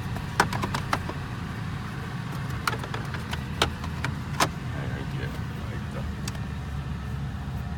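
A 2006 Lincoln Town Car's V8 engine idling with a steady low hum. A few sharp clicks and knocks come in the first half.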